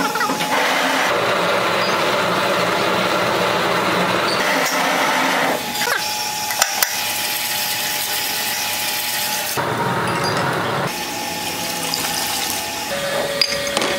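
Glass milk bottles being washed: a motor-driven rotating bottle brush scrubbing inside the glass, water jets rinsing, and water pouring and splashing in a tub, changing abruptly between these several times. A few sharp knocks of glass are heard along the way.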